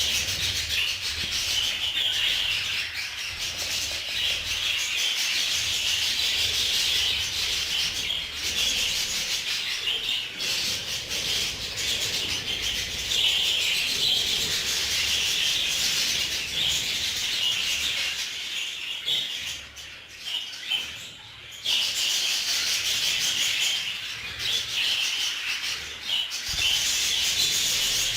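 A large flock of budgerigars chattering and chirping all together in a dense, continuous, raspy chorus, dipping briefly about two-thirds of the way through.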